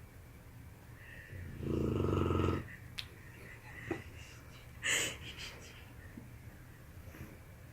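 Sleeping dog snoring: one loud snore about a second and a half in, lasting about a second, then a short hiss of breath near five seconds and a quiet pause.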